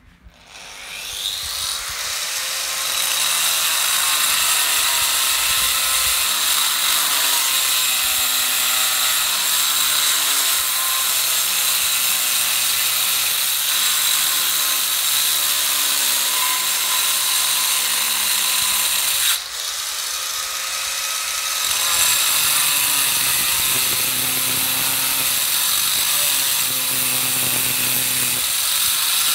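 Handheld angle grinder cutting into a stone slab: the whine and grinding noise build over the first couple of seconds and then run steadily, with a brief drop about two-thirds of the way through.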